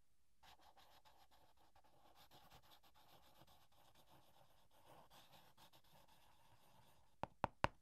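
Faint scratching of a pen writing on paper, a steady run of small strokes. It ends with three quick sharp taps near the end.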